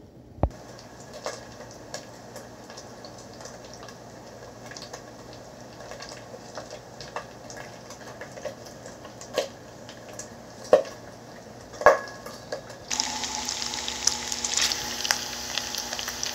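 Bacon frying in a skillet: a faint sizzle with scattered sharp pops of spitting fat, which about thirteen seconds in turns into a louder, dense crackle and sizzle. A sharp click comes just after the start.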